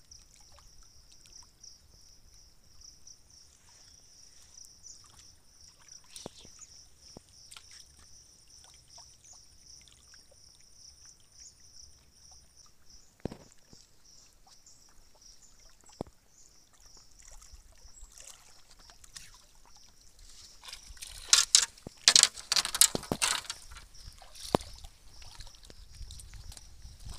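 Water lapping at a rocky shoreline under a steady high-pitched buzz, with a few scattered ticks. A few seconds of loud, ragged splashing come about three quarters of the way through.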